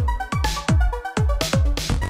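Electronic background music with a fast, steady beat and short synth notes.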